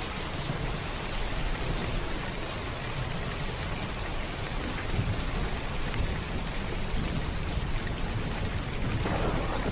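Heavy rain pattering steadily on a rooftop, with a low rumble of thunder underneath. The rain swells slightly near the end.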